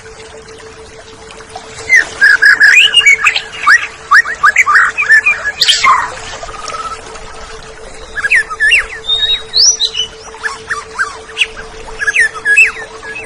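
Oriental magpie-robin (kacer) singing: rapid, varied whistles and chattering notes in two bursts, starting about two seconds in, with a short lull in the middle. A steady low hum runs underneath.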